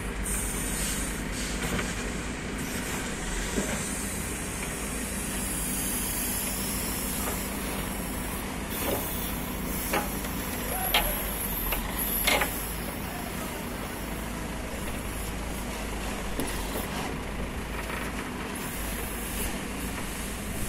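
JCB 3DX backhoe loader's diesel engine running steadily while it digs, with a few sharp metallic knocks and a brief high hiss about eleven seconds in.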